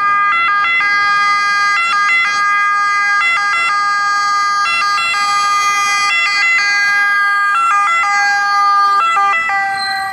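Italian ambulance siren wailing loud and close as the Fiat Ducato ambulance passes on an emergency run: a steady tone broken about every second and a half by a quick pair of pitch jumps.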